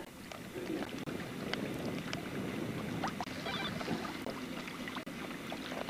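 Small waves lapping against a fishing boat's hull with light wind on the microphone, and a few faint ticks and knocks.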